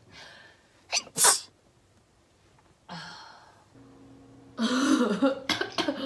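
A woman sneezes once about a second in: a brief in-breath, then a sharp double burst of breath. A longer, loud vocal outburst mixing voice and breath comes near the end.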